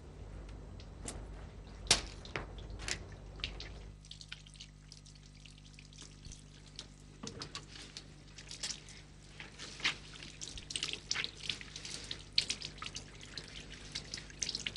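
A few sharp clicks at first. Then, from about seven seconds in, hands are washed under a running tap at a wash basin, with irregular splashing and dripping of water.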